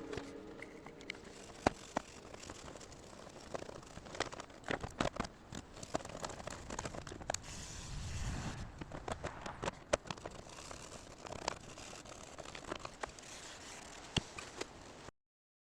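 Scattered small clicks, taps and faint rustling, as of small metal parts and tools being handled while working on a typewriter. The sound cuts off to silence just before the end.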